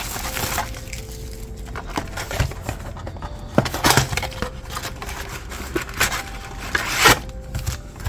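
A cardboard trading-card blaster box being opened and its foil-wrapped card packs tipped out. Irregular scraping, tapping and crinkling, with the sharpest rustle near the end as the packs slide out.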